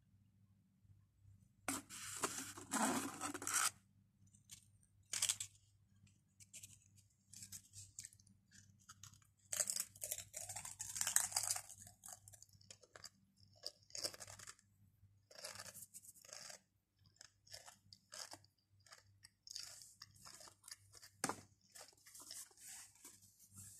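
Close-miked crunching and chewing of Pringles potato crisps: many short sharp crackles, with longer, louder stretches about two seconds in and again around ten seconds in.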